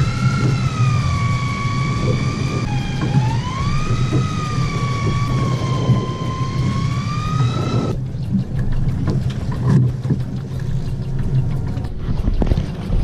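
Motor of a fishing reel whining as it winds line in against a heavy fish, its pitch sagging and rising again with the load, stopping about eight seconds in. A steady low hum runs beneath.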